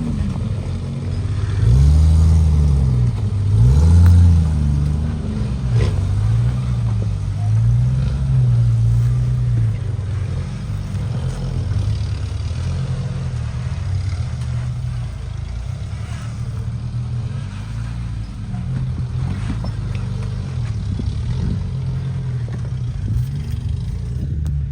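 Off-road vehicle's engine revving up and down again and again under throttle, loudest about two and four seconds in, then settling to a steadier, lower drone.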